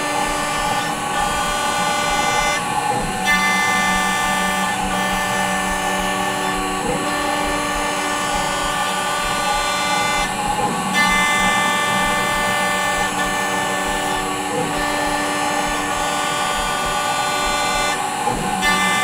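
APSX Spyder desktop CNC mill running a facing program: its spindle and stepper motors whine in several steady tones. About every four seconds the tones glide and change as the axes slow, reverse and speed up again for the next facing pass.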